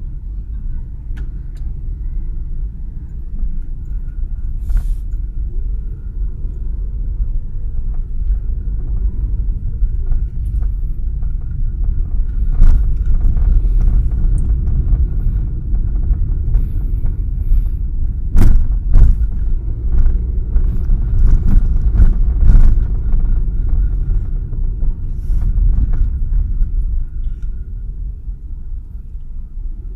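Car driving, a steady low rumble of engine and road, with a scatter of sharp knocks and jolts through the middle stretch.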